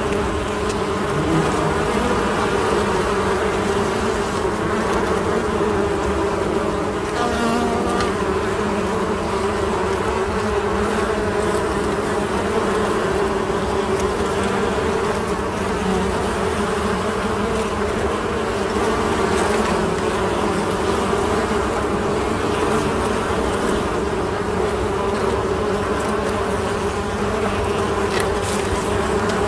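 Steady, even hum of a mass of honeybees buzzing together, the droning of a bee colony.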